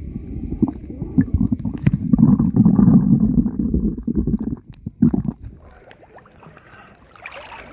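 Water gurgling and sloshing around a submerged camera, heard as a loud muffled rumble with many small bubbly pops. It drops away sharply about five and a half seconds in, as the camera comes up to the waterline.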